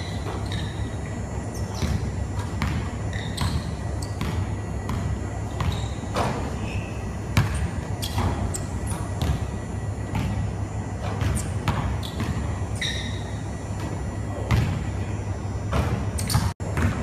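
Basketball bouncing on a hardwood gym floor, irregular sharp thuds echoing in a large hall, with a few short sneaker squeaks over a steady low rumble. There is a brief dropout near the end.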